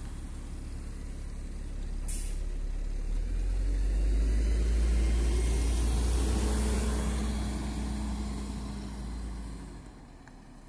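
City bus pulling away from a stop: a short hiss of compressed air about two seconds in, then the engine revs up under load with its note rising as the bus accelerates. The engine fades off as the bus drives away near the end.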